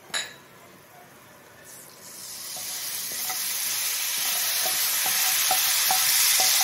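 Ground spices frying in hot oil in a nonstick pan, sizzling louder from about two seconds in as a little water goes into the oil, with a spatula scraping and tapping the pan.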